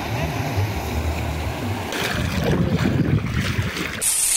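Rushing floodwater with wind rumbling on the microphone. The sound changes abruptly about two seconds in and again near the end.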